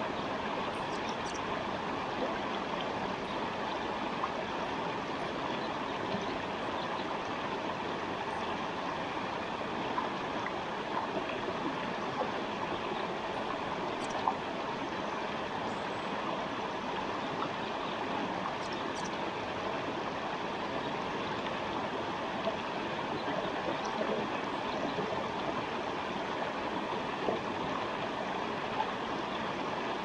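Forest stream running with a steady rush of water. A few faint, brief high bird chirps come over it now and then.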